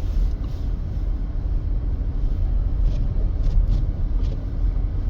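Steady low rumble of road and engine noise heard inside the cabin of a 2025 Mercedes-Benz GLC 300 driving slowly on a snow-covered road, with a few faint ticks about three to four seconds in.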